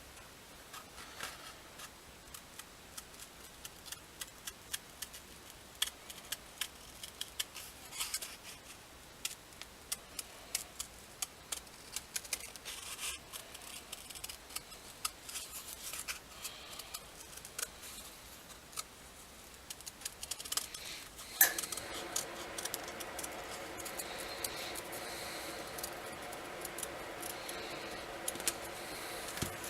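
Hand snips cutting out a bracket, a long run of sharp clicking snips. About three quarters of the way through, a steady pitched hum starts and runs on.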